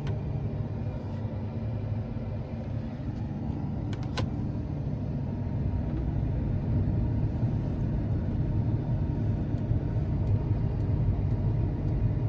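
John Deere S790 combine running steadily with a low rumble, a little louder in the second half, and a single sharp click about four seconds in.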